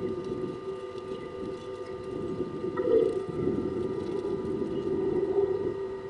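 Doves cooing over a steady low hum, with louder coos about halfway and near the end.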